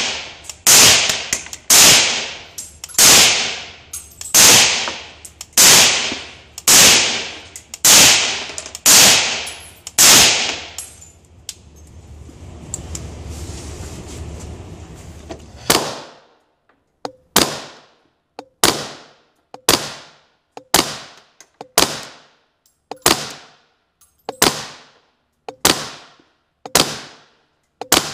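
Gunshots in an indoor range, fired about one a second with a ringing echo after each; about ten seconds in they stop for a few seconds of low rumble, then a second string of sharper shots follows at the same pace.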